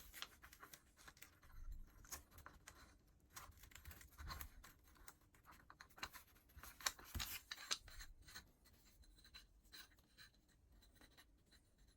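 Faint, irregular scratching, crackling and small ticks of masking tape being pulled, torn and pressed down onto a metal clamp part.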